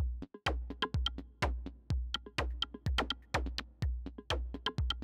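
Electronic intro music with a steady, punchy beat about twice a second over a deep bass, with lighter percussive hits between the beats.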